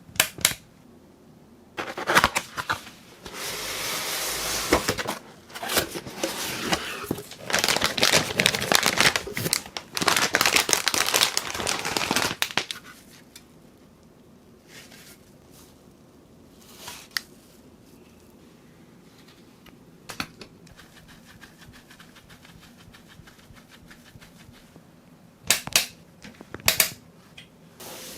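Hands handling PC building parts: a sharp click, then about ten seconds of crackling rustle, then scattered clicks with a few sharp ones near the end.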